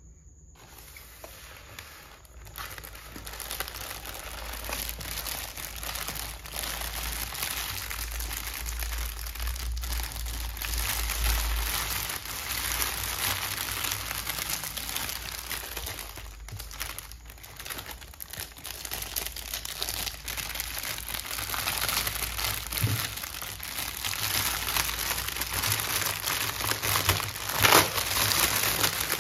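Plastic packaging crinkling and crackling as hands press, handle and pull open a clear plastic bag of printed minifigure packets, with one louder crackle about a second before the end.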